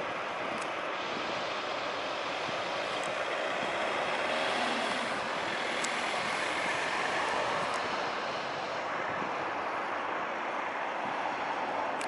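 Steady rushing roar of ocean surf breaking, with a faint engine whose pitch sweeps up and down a few seconds in.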